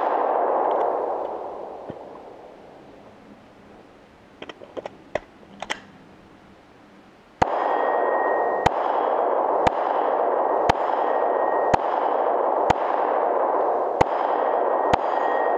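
Glock 17 9mm pistol firing at AR500 steel targets. A ring fades over the first two seconds, a few faint clicks come in a pause, then eight shots follow about a second apart from about seven seconds in, each with the ring of the steel plate.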